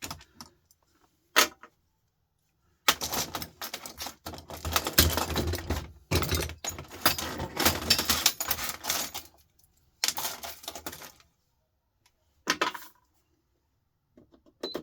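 Small salvaged electronic and metal scrap parts clattering and clicking as they are handled and sorted. A single sharp click comes first, then a dense rattling run lasting about six seconds, then two shorter bursts.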